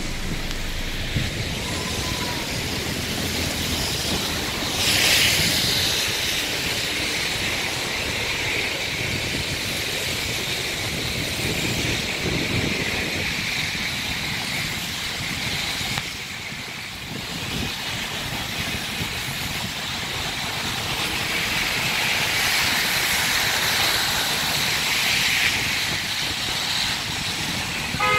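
Steady rushing noise of heavy rain together with vehicle and tyre noise on a wet road. It swells briefly about five seconds in and again for a few seconds past the twenty-second mark.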